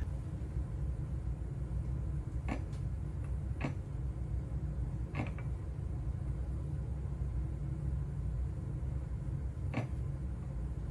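Steady low background rumble with a few short, faint clicks or knocks scattered through it.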